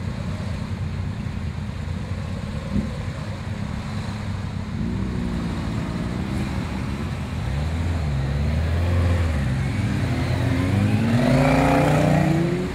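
Several motorcycle engines idling and then revving, their pitch rising as they pull away, growing louder in the second half.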